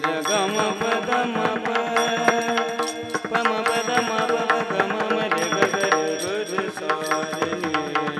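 Marathi kirtan music in raga Bhairavi: a sung devotional melody with wavering glides over steady held drone notes, accompanied by drum strokes and a brisk rhythm.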